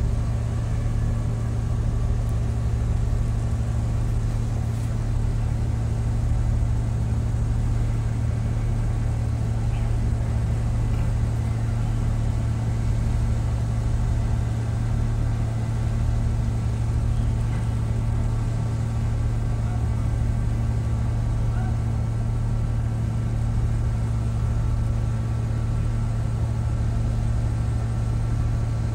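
Steady low drone of a ship's diesel engine, a constant hum with a deeper rumble beneath that holds an even level throughout.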